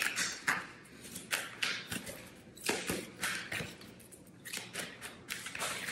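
A deck of oracle cards being shuffled by hand: a run of quick flicks and snaps of card against card, several a second.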